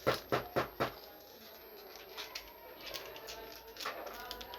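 Four quick, sharp taps of small hard toy pieces being handled, in about the first second, followed by faint small ticks and handling sounds.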